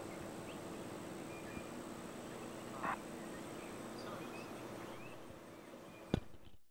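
Outdoor ambience: a steady hiss with faint, scattered bird chirps and one short, louder call about three seconds in. A sharp click sounds just after six seconds, and the sound then drops away abruptly.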